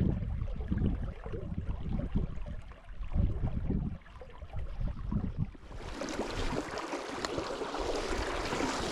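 Wind buffeting the microphone in low gusts, then from about six seconds in a steady rush of flowing river water.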